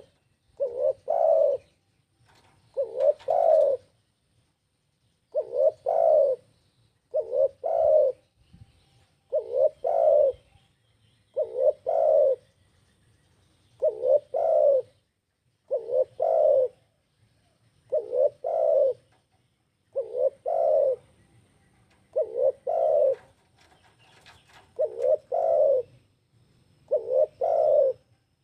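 Spotted dove (tekukur) cooing: a short phrase of two or three coos, repeated steadily about every two seconds. This is the call used as a lure to draw wild doves and to set caged doves singing.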